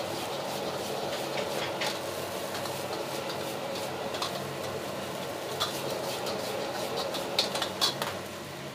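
A metal ladle scrapes and knocks against a wok while fried rice is stir-fried and tossed, with the rice sizzling lightly. Under it is the steady rush of the gas wok burner. Scattered sharp clicks of metal on metal come through, the loudest being two knocks a little before the end.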